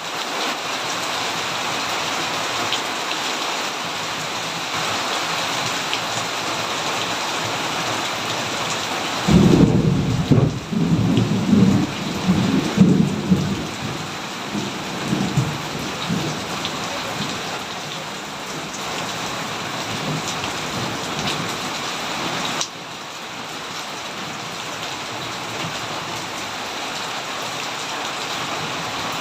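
Steady rain falling, with a peal of thunder breaking in about a third of the way through and rolling on in low rumbles for several seconds before fading. Near the end the rain's level drops suddenly.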